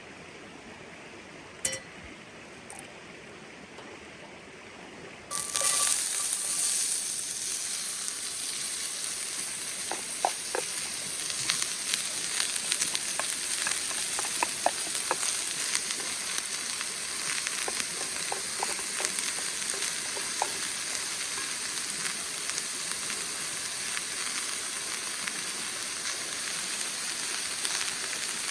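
Food hits a hot pan about five seconds in and sizzles steadily from then on, with scattered pops and crackles of frying.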